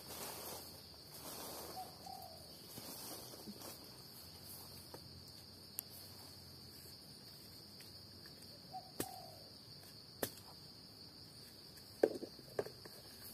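Steady high-pitched drone of forest insects, with a few sharp knocks and scrapes from a digging tool worked in the soil, the loudest knock near the end.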